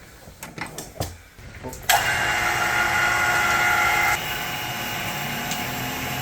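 A few clicks and knocks of hand work, then about two seconds in a loud, steady whirring hiss with a steady whine in it starts abruptly and eases slightly a couple of seconds later.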